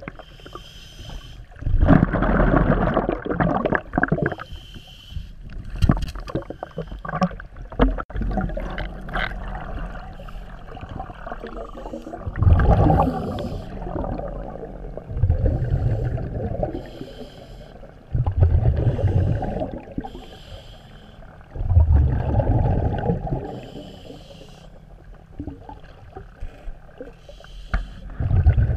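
Scuba regulator breathing underwater in cold lake water under ice: slow, regular breaths, each a short hissing inhale followed by a rumble of exhaust bubbles, repeating about every three to four seconds.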